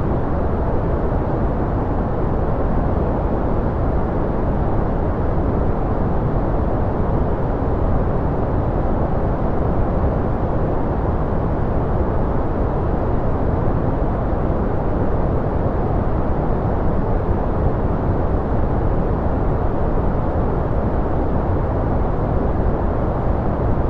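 Steady white-noise track: an even, unbroken rush, deep and muffled rather than hissing, with its weight in the low end.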